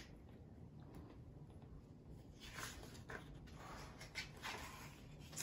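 Faint rustle of a picture book's paper pages being handled and turned, over quiet room tone.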